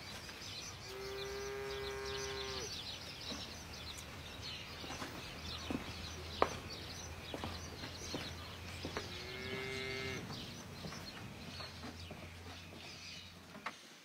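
Cattle mooing twice, each a steady-pitched call, the first about a second and a half long and the second shorter, with a few small knocks in between.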